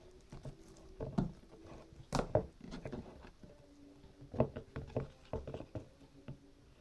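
Irregular clicks, taps and small knocks of objects being handled on a table, the loudest about two seconds in and again past four seconds, over a faint steady hum.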